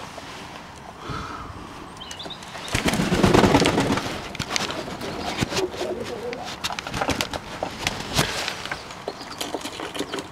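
Fantail doves cooing, mixed with a run of sharp clicks and wing flaps close to the microphone. The loudest part is a dense burst of rustling and fluttering near the microphone about three seconds in.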